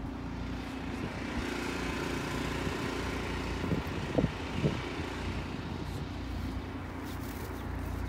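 Steady low hum of distant vehicle traffic, with a few short knocks about halfway through.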